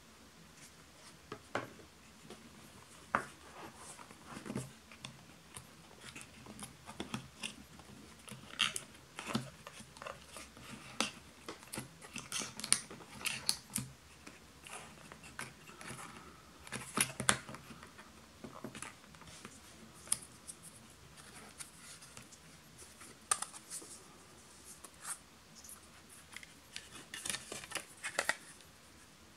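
Hands handling a smartphone and its cardboard box: irregular small clicks, taps and scrapes of fingers on the box insert and the film-covered phone as it is lifted from its tray.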